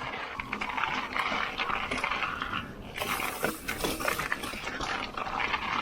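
Mountain biker breathing hard and panting while riding, over rough trail and tyre noise, with a burst of hiss about three seconds in.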